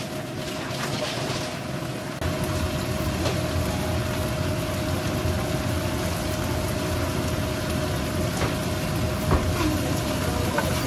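Beef and bamboo shoot strips sizzling in a hot wok as a spatula stirs them, with a steady hiss that gets louder about two seconds in and a few light scrapes of the spatula on the pan. A faint steady hum runs underneath.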